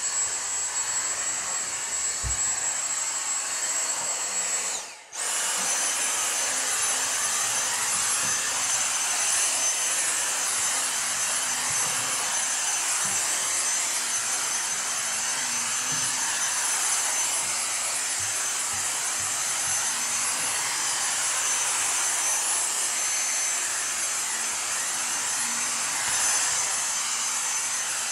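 Dyson V6 cordless stick vacuum running on carpeted stairs, a steady motor whine over airflow hiss. About five seconds in the sound briefly dips as it is switched to Max power, then it runs on with a noticeably higher-pitched whine.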